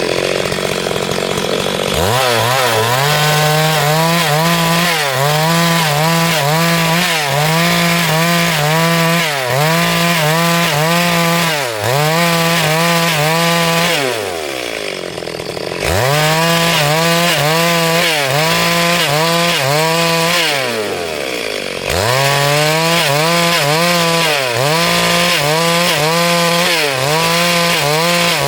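Two-stroke chainsaw cutting lengthwise through a log at full throttle, its engine note dipping about once a second as the chain bites into the wood. It drops back to idle twice and revs up again each time.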